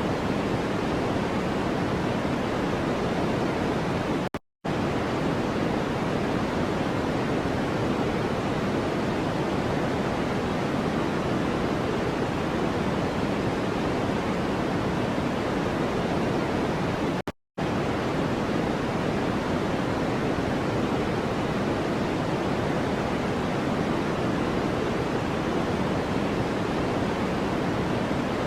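Steady white-noise track, a deep, even hiss with no changes in character. It cuts out to silence for an instant twice, about four seconds in and again about thirteen seconds later, as the track loops.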